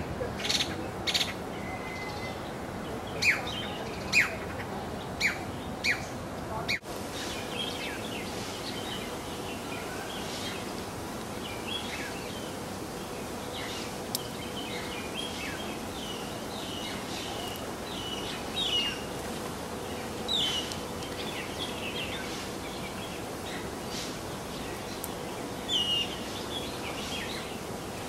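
Masked laughingthrushes calling: loud, sharp calls about once a second, then after a brief dropout about seven seconds in, a scatter of fainter chirps and chatter with a few louder calls later on.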